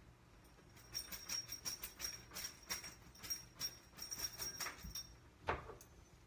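Faint, quick, light clicking and jingling, several clicks a second over a thin high ringing tone, that stops about five seconds in, followed by one louder click.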